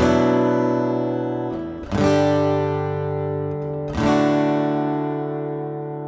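Acoustic guitar background music: three chords strummed about two seconds apart, each left to ring and slowly fade.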